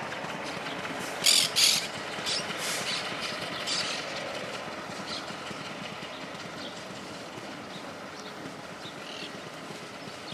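EMD G22CU diesel-electric locomotive's naturally aspirated 12-645E engine running as the locomotive rolls away, the sound slowly fading. A few short, sharp noises come in the first four seconds, the loudest a pair just over a second in.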